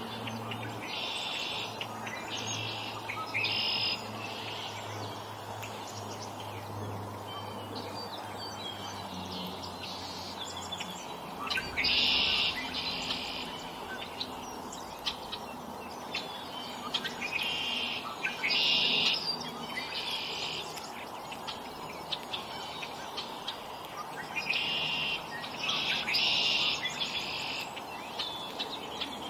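Wild songbirds calling at a backyard feeder: short, harsh calls come in quick runs of about three, repeated four times. A low steady hum fades out about a third of the way through.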